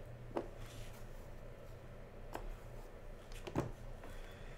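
Three light clicks from hard plastic card holders being handled, the last one the loudest, over a low steady hum.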